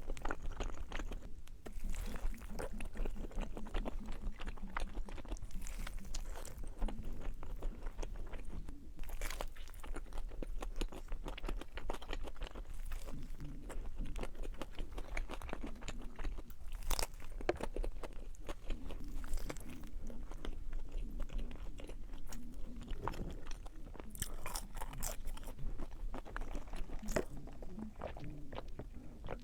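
Close-up chewing and crunching of a hamburger and fries, with crisp crackles from bites.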